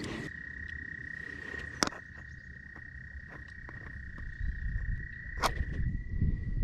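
A frog's steady, high-pitched trill running on without a break. Two sharp clicks sound about two seconds and five and a half seconds in, and a low rumble builds near the end.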